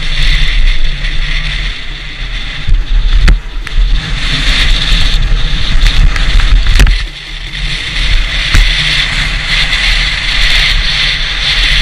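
Wooden horn sled running fast downhill over packed snow: a steady scraping hiss from the runners with wind buffeting the microphone, and a few sharp knocks as the sled jolts over bumps, about three seconds in, near seven seconds and again shortly after.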